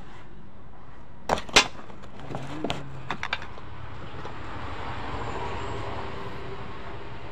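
Two sharp knocks about a quarter second apart, then a few lighter clicks: tools and parts handled against the metal body of a three-wheeler, over a steady background hum.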